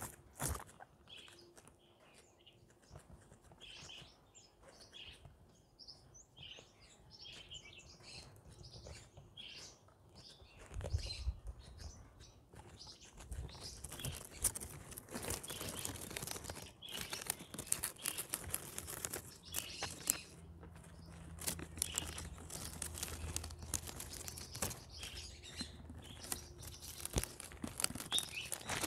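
Guinea pigs chewing and tearing at fresh plants: a run of small crunching, crackling clicks that gets busier and louder about a third of the way in. Short high chirps come and go, mostly in the first part.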